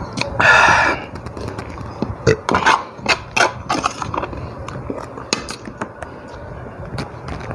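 Eating sounds: a loud half-second noise about half a second in, then a run of small clicks and taps from chewing and from fingers picking food off a plate.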